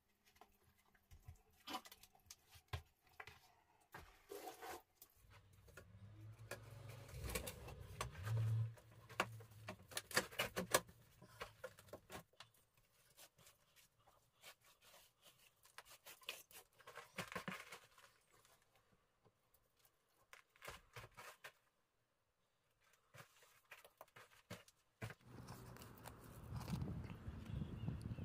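Hands pressing and smoothing wet mud around a galvanized steel flue pipe set in an earthen wall: scattered scraping, crunching and small clicks of earth and grit.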